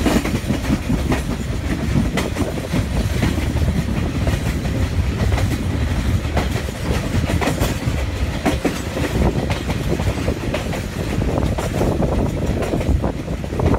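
TAZARA passenger train running along the line, its wheels clattering over the rails with a steady rush of running noise and frequent sharp clicks.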